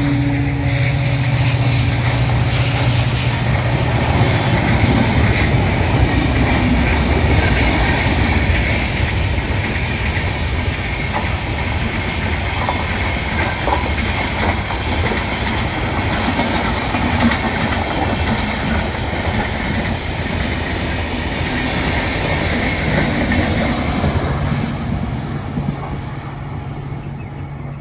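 Rani Chennamma Express passenger train running by, its wheels clattering over the rail joints with a continuous rumble; the sound fades away over the last few seconds.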